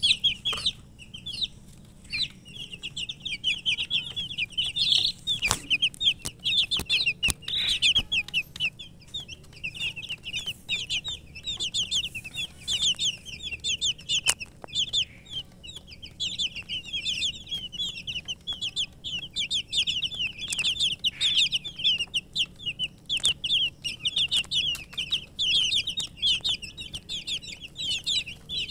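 A brood of domestic chicken chicks peeping nonstop, many short high chirps overlapping, with a few sharp clicks now and then.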